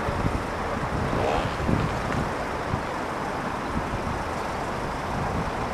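Steady road-traffic noise, a low even rumble of vehicles waiting and running.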